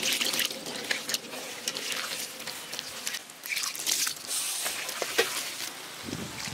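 Wet squishing and irregular clicks and splats of spices, flour and ginger-garlic paste being mixed by hand in a bowl for pakoda batter.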